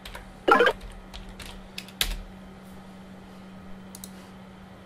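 Typing on a computer keyboard: a quick run of keystrokes ending in a louder key press about two seconds in, entering a search. A single click follows about four seconds in, over a faint steady hum.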